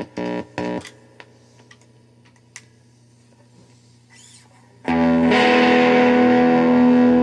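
Electric Telecaster-style guitar played through a tube amp converted from a 1967 General Electric portable hi-fi. It opens with a few short plucked notes, then a steady amp hum with small clicks. About five seconds in, a loud full chord is strummed and left ringing.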